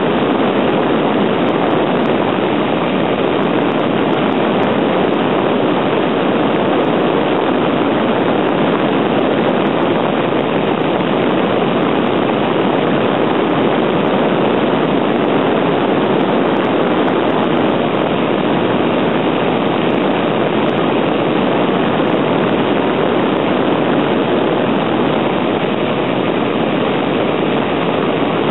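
Routout Z90 CNC router running steadily while milling a printed circuit board: an even, unbroken mechanical rushing noise with no change in level.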